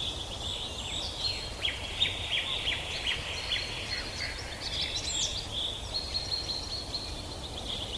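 Several songbirds chirping and trilling together in a forest, with a quick run of repeated chirps a couple of seconds in, over a low steady rumble of background noise.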